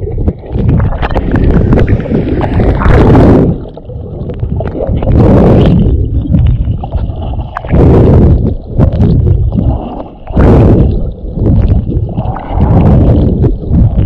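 Water churning and gurgling around a waterproof GoPro held underwater by a swimmer. The muffled rushing surges of the swimming strokes come every two to three seconds, with a few sharper splashes.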